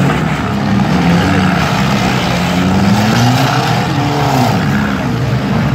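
Several front-wheel-drive demolition derby cars' engines running and revving at once, their pitches rising and falling as they rev.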